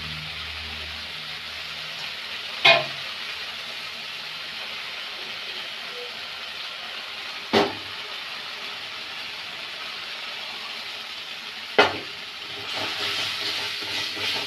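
Masala paste sizzling in oil in a metal kadai while it is fried down. A steel spatula knocks sharply against the pan three times, and near the end the stirring and scraping get louder.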